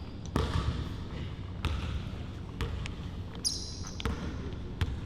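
A basketball is dribbled on an indoor court floor, bouncing roughly once a second at an uneven pace. There is a brief high squeak about three and a half seconds in.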